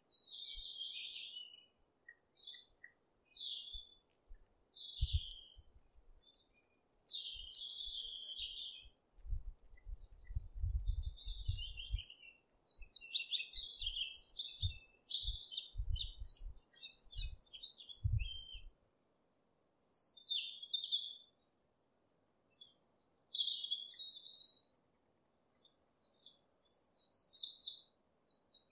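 Small birds chirping and twittering in short, high clusters of notes again and again, with a few dull low thuds among them through the first two-thirds.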